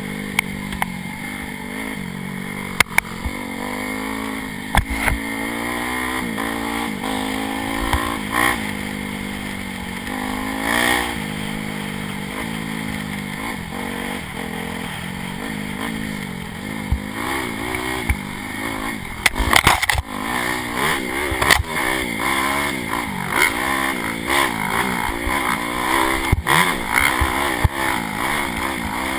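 Dirt bike engine being ridden hard off-road, its pitch rising and falling over and over as the throttle is opened and closed, with sharp knocks and clatter from the bike hitting bumps. Heard from the rider's helmet camera.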